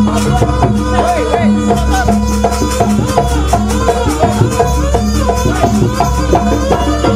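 Jaranan dance music from a traditional East Javanese ensemble, playing steadily. A stepping melody runs over low held gong-like tones, with a quick, even clattering beat of about three to four strokes a second.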